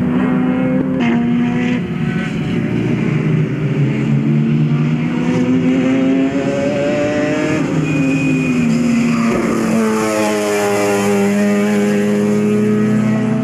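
Mazda RX-4 race car's peripheral-port 13B two-rotor engine running hard on track. Its pitch rises and falls, with a sharp drop about two-thirds of the way through before it picks up again.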